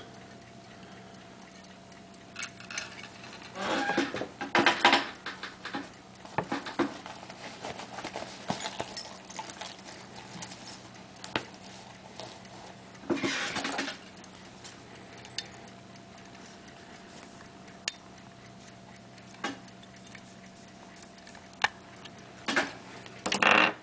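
Handling of a sterling-silver hunter pocket-watch case as its bezel is prised loose and its hinged parts are worked: irregular sharp metal clicks, with short bursts of rattling and scraping about four seconds in, near the middle and near the end.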